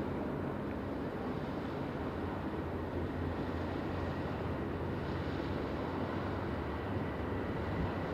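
Ship engines running, a steady low rumble with no breaks or changes.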